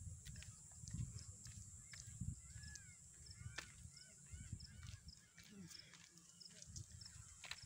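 Faint open-air ambience: a steady high insect drone, with a short run of chirping bird calls about three seconds in, over an uneven low rumble from the handheld phone being carried.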